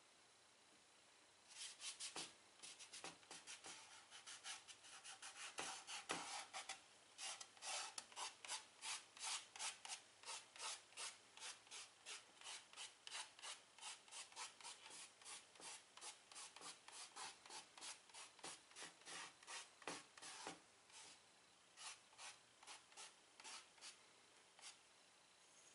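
White chalk scratching on a chalkboard in quick short strokes, about four a second. The strokes start about a second and a half in and thin out to scattered single strokes in the last few seconds.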